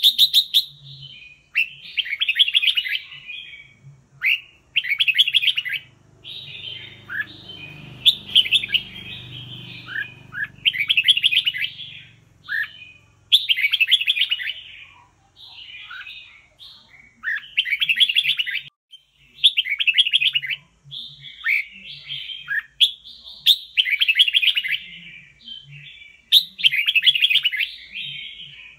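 Red-whiskered bulbul singing: short warbled phrases of about a second each, repeated every second or two.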